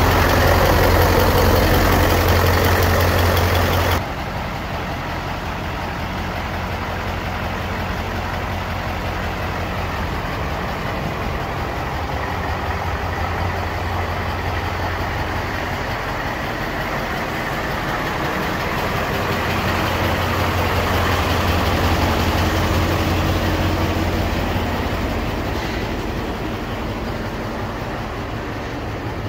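Mercedes-Benz 2629 K tipper truck's diesel engine idling steadily with a low hum. The level drops suddenly about four seconds in.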